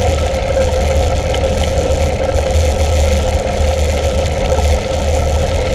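Mountain bike riding along a gravel path: steady, loud rumble of wind on the camera microphone mixed with tyre noise on the gravel, with a faint steady hum underneath.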